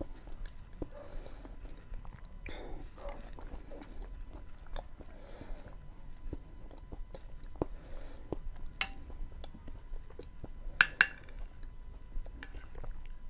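Close-miked chewing and mouth sounds of someone eating beans with onion and tomato: small wet smacks and clicks, with a short burst of sharp, loud clicks about eleven seconds in.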